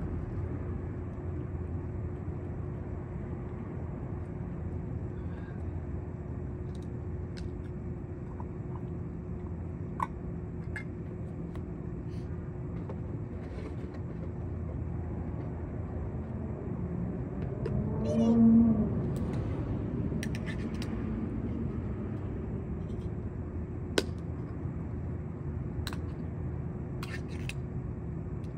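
A feral cat meows once, about two-thirds of the way in, with a pitch that bends up and down, over a steady low hum; a couple of sharp clicks stand out before and after it.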